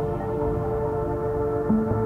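Background music: soft ambient music with sustained held notes, and a new phrase of notes coming in near the end.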